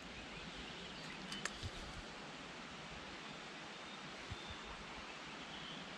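Faint, steady outdoor background hiss, with a few small clicks about a second and a half in.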